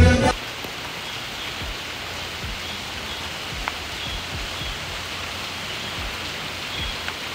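Steady hiss of rain, with scattered faint low thumps underneath.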